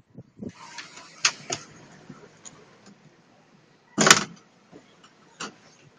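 A few scattered knocks and rubs of handling noise on a phone held close to a crawling baby. The loudest is a short thud about four seconds in, with fainter clicks around it.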